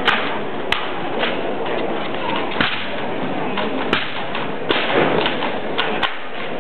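An M14 rifle being spun and caught in an exhibition drill routine: sharp slaps and knocks of the rifle against hands, about seven at irregular intervals. Steady background noise of the hall runs underneath.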